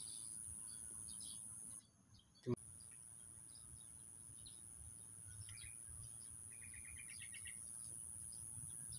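Faint outdoor ambience of small birds chirping now and then over a steady high-pitched whine. A little past halfway there is a quick run of about eight short chirps. The sound drops out briefly about two seconds in and comes back with a click.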